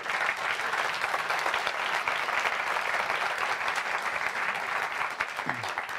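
Audience applauding steadily, the clapping starting to thin out near the end.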